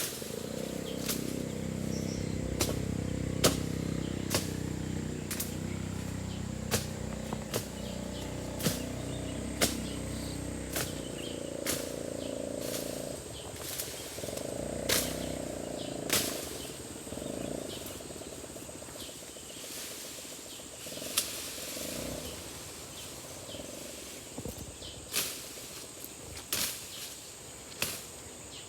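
Sharp clicks or snaps about once a second over a low rumbling noise that fades about halfway through, with a thin steady high insect drone underneath.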